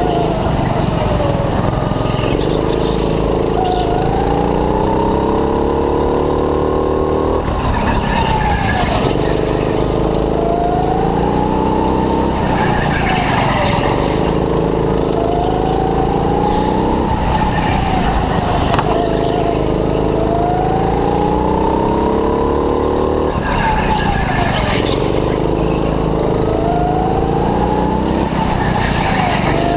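Go-kart's small engine heard from the driver's seat, rising in pitch as it accelerates down each straight and dropping as the driver lifts for a corner, in a cycle about every five seconds. Brief tyre squeal comes in the corners as the kart slides.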